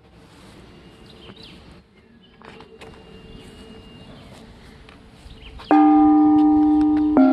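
A metal gong struck twice near the end, about a second and a half apart, each strike ringing on with several clear tones. Before the strikes there is only faint outdoor background.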